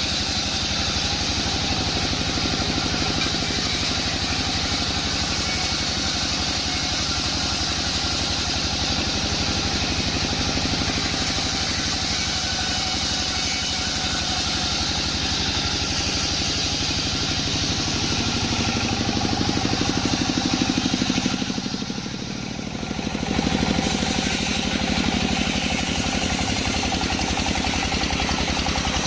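Sawmill bandsaw machinery running with a steady engine drone. The drone swells slightly just before a brief drop in loudness about 22 seconds in, then carries on.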